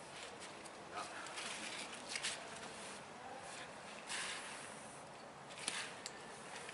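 Aerosol spray-paint can spraying onto a wall in several short hissing bursts.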